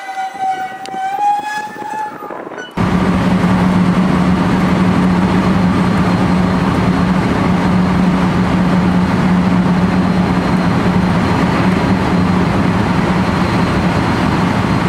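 JR West 223 series electric train car heard from inside beside the door while running: a loud, steady rumble of wheels and running gear with a constant low hum. It starts abruptly about three seconds in. Before that there are softer platform sounds with a few pitched tones.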